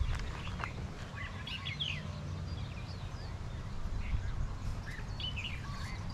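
Birds chirping in short, scattered calls over a low, steady rumble.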